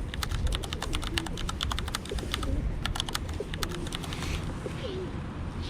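A rapid, irregular series of sharp clicks that stops about four seconds in.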